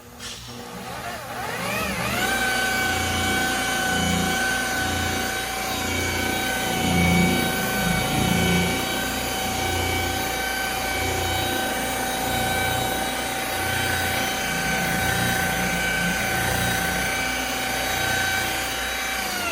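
Electric car buffer spinning up over about two seconds, then running at a steady high whine with an uneven low rubbing underneath as the pad works a test spot on old, worn paint. It cuts off suddenly near the end.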